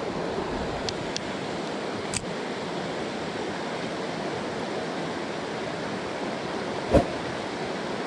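Shallow mountain stream rushing steadily over stones. A few faint clicks come in the first couple of seconds, and a short thump about seven seconds in.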